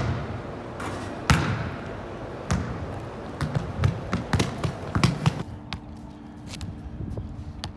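Basketball slapping against a gym wall and bouncing on the hardwood floor, each sharp hit echoing in the big hall, with a quicker run of bounces about three to five seconds in. After about five and a half seconds it gives way to a quieter background with faint ticks.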